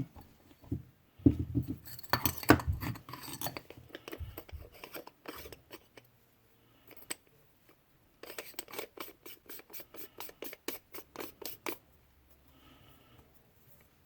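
Zebco Bullet spincast reel worked by hand: the thumb button is pressed, then a few seconds of handling knocks and rattles, then the handle is cranked, giving a run of even, rapid clicks, about seven a second, for three or four seconds.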